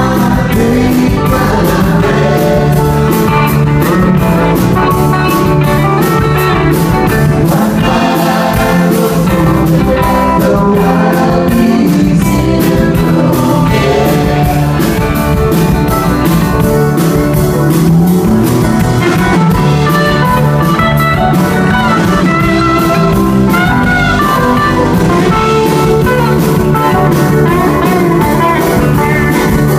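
Live rock band playing, with an electric guitar lead over bass and drum kit.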